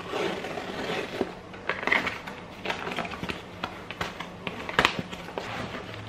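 Cardboard box being opened and handled: scraping and rustling of cardboard flaps and packing, broken by sharp clicks and knocks, the loudest about five seconds in.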